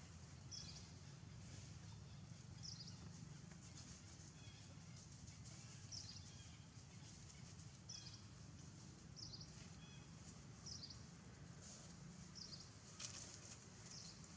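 Near-silent outdoor ambience: short, faint, high chirps that fall in pitch repeat about every one to two seconds over a low steady hum.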